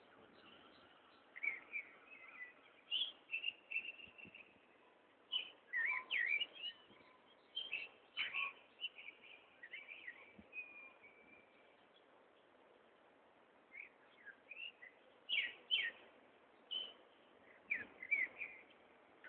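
Dawn chorus of several birds: short chirps and warbled song phrases overlap, with a brief lull about halfway through.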